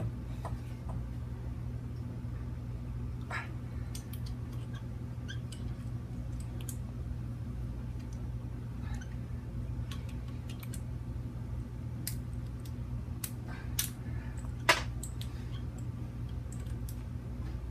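Scattered small clicks and clinks of a hand tool working on a fidget spinner to break it, with one sharper click about fifteen seconds in, over a steady low electrical hum.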